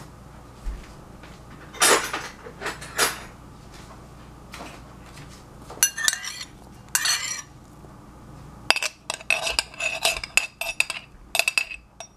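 Metal spoon clinking and scraping against a glass jar as black olives are scooped out: a few scattered clinks at first, then a quick run of ringing clinks over the last few seconds.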